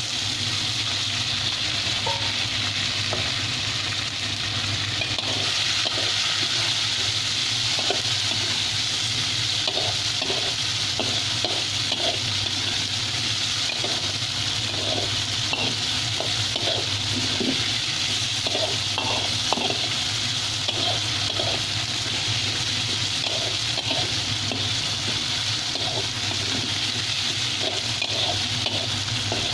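Long beans and chicken sizzling in hot oil in a metal wok, with a slotted metal spatula scraping and knocking against the pan over and over as they are stir-fried.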